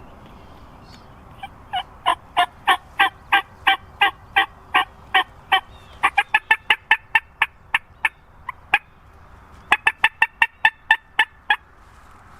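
Wild turkey hen yelping. From about a second and a half in, evenly spaced yelps come about three a second, each note breaking from low to high. They speed into fast cutting, pause briefly near nine seconds, and finish with another quick run.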